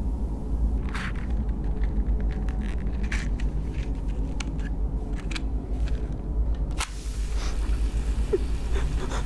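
A steady low rumbling drone with scattered crackles and clicks over it; about seven seconds in a sharp crack cuts through and a brighter hiss joins the rumble.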